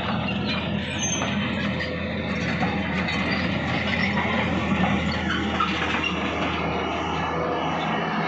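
Heavy diesel engines of an excavator and dump truck running steadily under load, with metallic clanking and squealing over the top.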